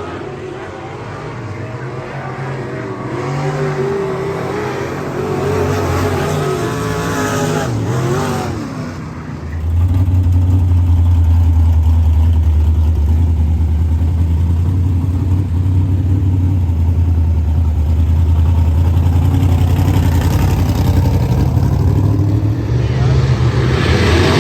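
Race car engine revving, its pitch rising and falling for several seconds. About ten seconds in it settles into a loud, steady, low drone.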